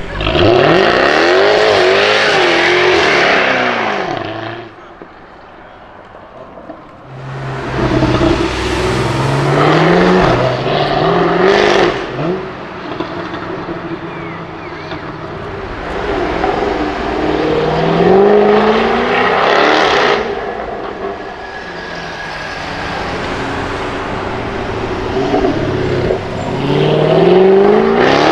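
Jaguar F-Type V8 R's supercharged 5.0-litre V8 accelerating hard several times, its pitch climbing in steps through the gear changes. There is a falling sweep in the first few seconds and a sharp exhaust pop about twelve seconds in.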